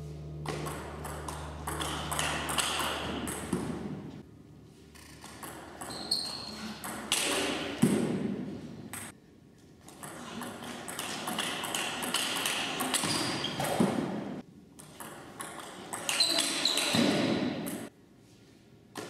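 Table tennis rallies: the ball clicks off the paddles and bounces on the table in quick runs of hits, with short pauses between points.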